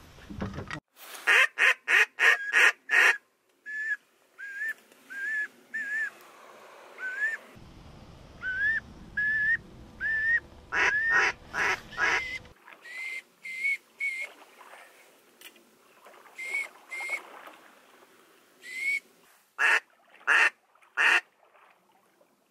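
Waterfowl calling, most likely the hunters' duck calls: runs of loud, quick quacks with short rising whistled notes in between.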